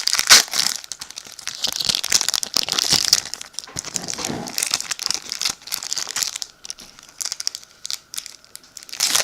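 Pokémon booster pack's foil wrapper crinkling and being torn open by hand, in dense bursts over the first six seconds, then quieter, with another loud crinkle near the end.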